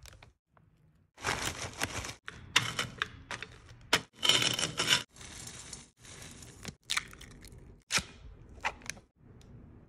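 Plastic bags crinkling and crackling with the crunch of Takis rolled tortilla chips being crushed, in a run of noisy bursts with sharp cracks. The loudest burst comes a little after four seconds in, and the bursts are quieter from about five seconds on.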